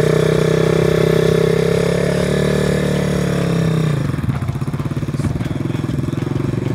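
Enduro dirt bike engine held at steady revs, then about four seconds in it drops to a lower, pulsing beat as the bike pulls away and rides off.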